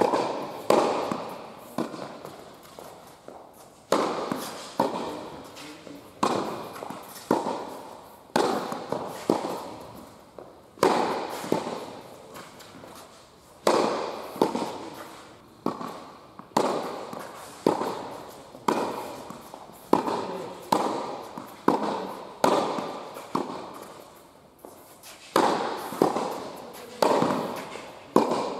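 Tennis volleys: rackets striking the ball in a quick rally, sharp hits about one or two a second, each ringing out in an echoing indoor tennis hall.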